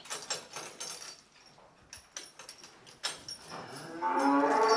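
Barn ambience: scattered knocks and rustles, then one long cattle moo starting near the end.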